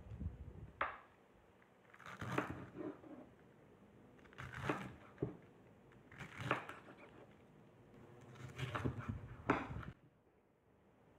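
Chef's knife cutting through a head of raw cabbage on a wooden cutting board, with about five crunchy cuts a second or two apart.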